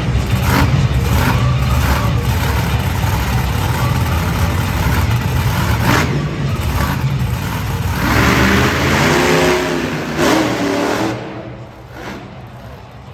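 Monster truck engine running loud, with the pitch rising and falling in revs about two-thirds of the way through, then dropping away near the end.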